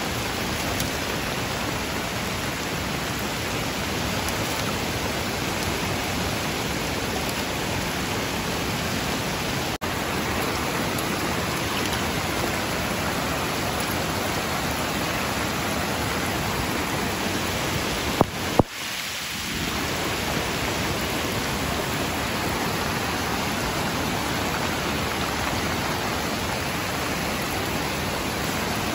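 Heavy rain pouring down in a steady, even hiss. Two sharp knocks come about two-thirds of the way through.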